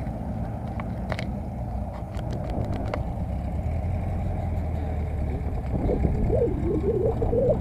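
Car engine running with a steady low rumble. Near the end its pitch wavers up and down as it is revved lightly.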